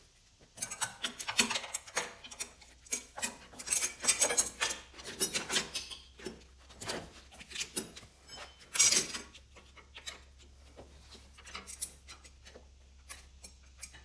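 Metal hydraulic line and fittings clinking, rattling and scraping against the tractor's frame as the line is worked into place. The clatter is dense for about the first nine seconds, then thins to a few scattered clicks.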